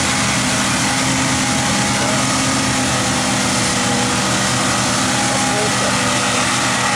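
Jeep Wrangler TJ's engine running hard at steady, held revs as the Jeep climbs a muddy, rutted trail, its tyres spinning and throwing dirt.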